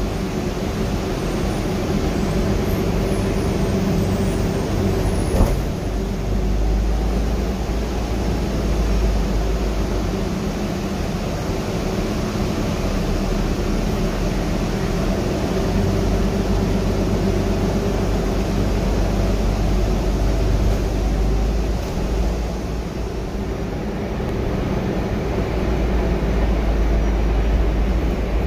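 Cabin noise inside a moving Gillig trolley-replica hybrid bus: a steady drivetrain hum over low road rumble, with one sharp knock about five seconds in.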